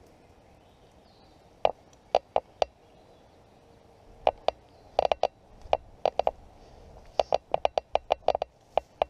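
Airsoft guns firing: sharp pops, a few single shots and pairs at first, then a quick string of about a dozen shots in the last two seconds.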